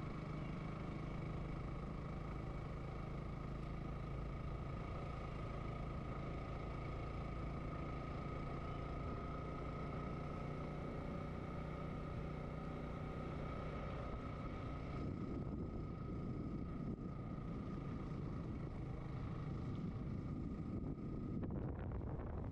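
Motorcycle engine running at a steady cruise with a steady whine, heard over wind at a helmet-mounted microphone. About fifteen seconds in, the engine's low steady note gives way to a rougher rumble, and the whine cuts off near the end.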